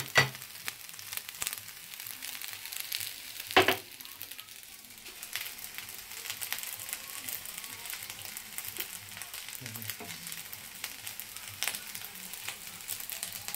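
Prawn fried rice with broccoli sizzling in a frying pan while a wooden spatula stirs and scoops it, with scattered small scrapes and taps. One sharp knock about three and a half seconds in.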